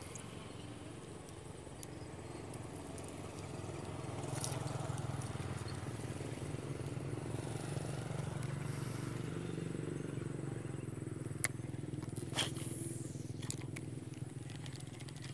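A vehicle engine running steadily, growing louder about four seconds in and easing off near the end, with a couple of sharp clicks.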